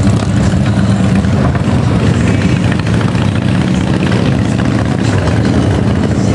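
Police motorcycle engines idling, with one motorcycle riding slowly past at low revs.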